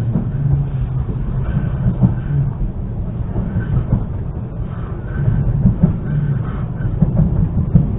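ЭШ2 (Stadler KISS) double-decker electric train running at speed, heard from inside the carriage: a steady low rumble with scattered clicks from the wheels on the rails.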